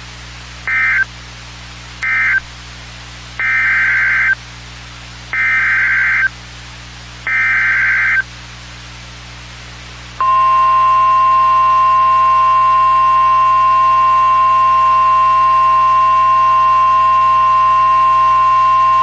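NOAA Weather Radio emergency alert signals. Two short bursts of buzzy data tones end the previous warning, then three longer data bursts make up the next warning's header. About ten seconds in, the loud steady 1050 Hz warning alarm tone starts and holds for nearly nine seconds.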